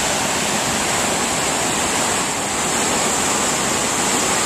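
Vltava river water rushing over a low drop, a steady loud roar of falling water with no break.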